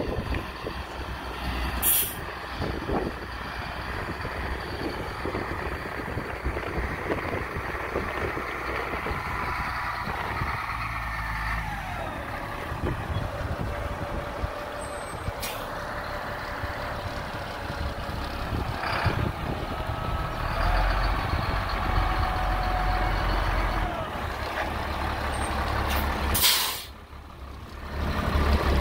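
A 1999 Kenworth single-axle grain truck's diesel engine running, with several short air-brake hisses. The loudest, longest hiss comes near the end.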